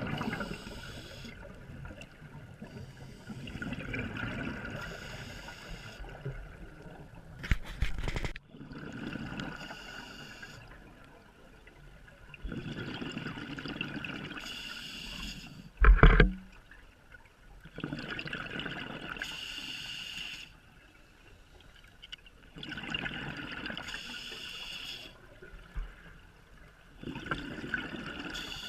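Scuba regulator breathing underwater: a bubbly burst of exhaled air about every four to five seconds. A sharp knock about halfway through, with a smaller one before it.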